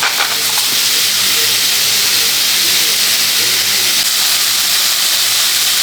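Chicken frying in a hot pan: a loud, steady sizzle.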